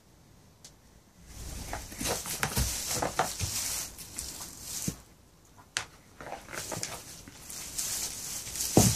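Goats scuffling and pushing head to head in straw bedding during a rank-order fight: straw rustling and crackling under their hooves, with a few sharp knocks. It starts after about a second of quiet and dies down briefly about five seconds in.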